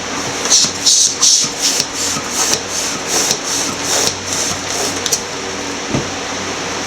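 Hand balloon pump inflating a latex balloon: a quick run of short air puffs, about three strokes a second, stopping about five seconds in.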